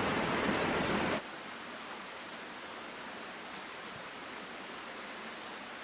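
Steady rush of flowing water, louder at first, then cut abruptly about a second in to a quieter, even rush.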